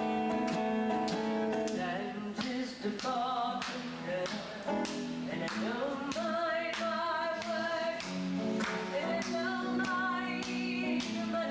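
Music: guitar strumming on a steady beat, with singing joining about two seconds in.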